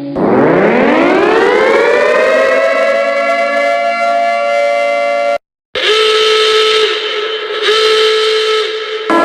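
An emergency siren winds up, its pitch rising over about two seconds and then holding steady. After a sudden cut about five seconds in, a different alarm sounds a steady chord of several pitches in one-second blasts with short gaps: two full blasts, and a third starting at the very end.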